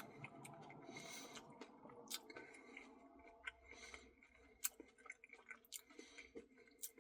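Faint chewing with scattered small mouth clicks: a person eating a soft-serve ice cream Blizzard.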